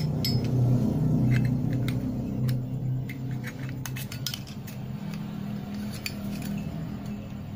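Light metallic clicks and scrapes as a lighter insert is pushed back into a Zippo's metal case, over a steady low hum.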